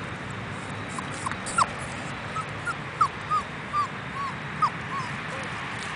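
Puppy whimpering: a dozen or so short, high whines one after another, starting about a second in.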